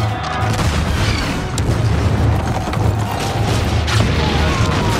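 Film battle sound: a pounding low rumble of booms with a few sharp gunshot cracks, mixed with an added film score.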